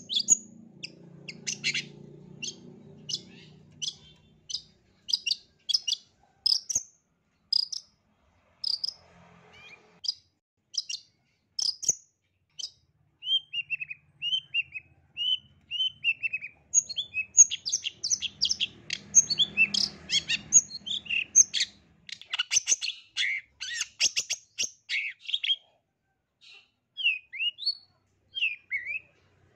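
Long-tailed shrike singing: a series of short, sharp chirps about one or two a second, then a string of falling notes, then a fast, dense chatter of mixed notes that thins out to scattered calls near the end.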